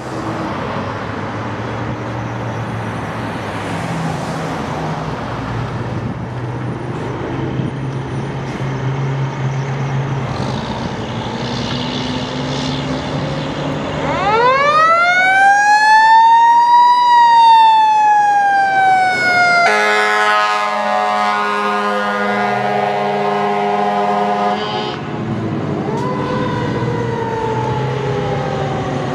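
Fire engine responding to a call. A low engine rumble is followed, about halfway through, by its siren winding up to a loud wail and slowly winding down. A steady horn blast of about five seconds overlaps the wind-down, and near the end the siren rises and falls again.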